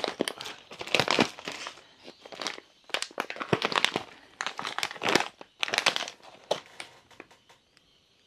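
Plastic packaging crinkling in irregular bursts as a green plastic ration pouch is slid out of a clear zip-lock bag and handled, dying away near the end.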